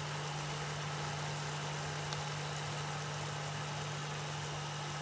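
Spiced masala frying in hot oil in a cooking pot, with an even, steady sizzle and a constant low hum underneath.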